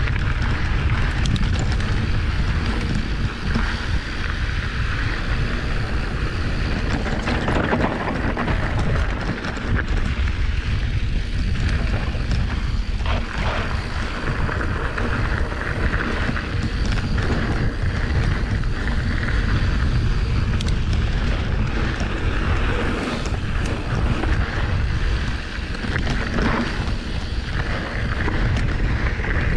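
Wind buffeting the camera microphone while a mountain bike rolls over a dry dirt singletrack, the tyres rumbling on the trail, with a few scattered clicks and rattles from the bike.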